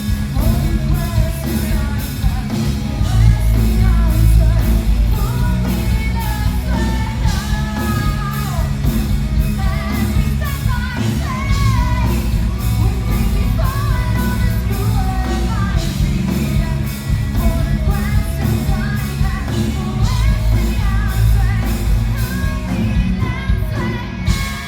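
Live rock band playing with a lead singer: a sung melody over loud drums, bass and guitars. The band sound stops abruptly just before the end.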